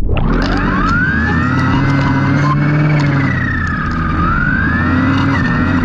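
A siren wailing, its pitch sweeping slowly up and down every two to three seconds over a steady low hum.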